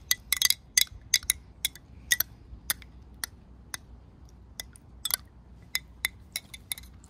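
A spoon stirring sugar into a cup of tea, clinking against the side of the cup in irregular sharp taps, about two a second.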